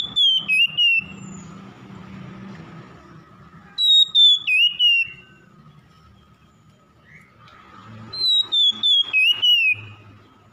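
Male oriental magpie-robin singing a loud whistled phrase three times, about four seconds apart. Each phrase starts high and steps down in pitch in short clipped notes.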